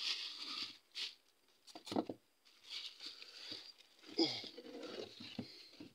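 Rustling and scraping of a cardboard box of onions and potatoes being handled and moved, with a few sharp knocks and a louder, falling sound about four seconds in.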